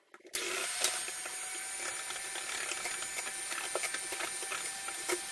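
Electric hand mixer running steadily, its beaters whisking milk into a cake batter of eggs, sugar and oil in a glass bowl, with scattered light ticks. It is switched on just after the start.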